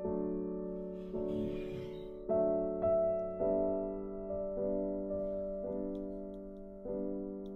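Background piano music: slow chords, each struck and left to ring and fade, one about every second.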